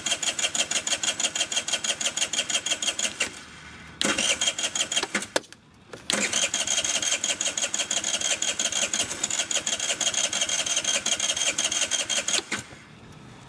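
Scooter engine being cranked over, a fast, even pulsing of about seven beats a second. It comes in three goes: about three seconds, a short break, a brief burst, a pause, then about six seconds more, and it stops near the end.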